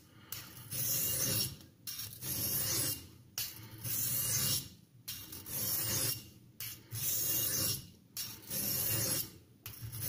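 12C27 stainless steel pocket-knife blade being drawn in long strokes across an oiled Norton India Fine sharpening stone, a dry rasping scrape with each pass. There is about one stroke every one and a half seconds, each separated by a short pause.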